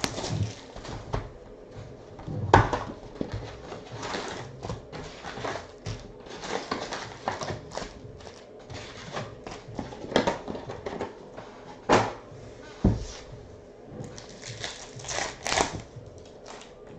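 A hobby box of trading cards and its foil packs being opened by hand: wrappers crinkling and tearing, and cardboard rustling, with several sharp knocks and clicks, the loudest about two and a half seconds and twelve seconds in.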